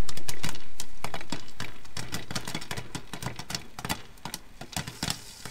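Popcorn popping in a lidded pan on a stove: rapid, irregular pops over a fading hiss.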